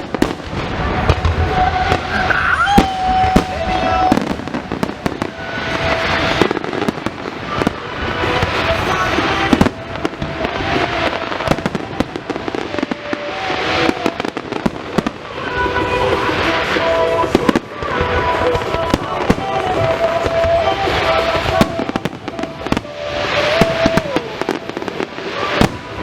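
Aerial fireworks going off again and again: sharp bangs, with swells of crackling every two to three seconds.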